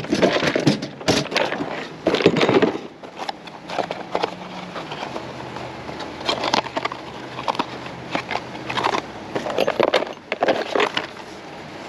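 Cardboard parts boxes and plastic car parts being handled and rummaged through: irregular rustling, crinkling and knocks, busiest in the first three seconds.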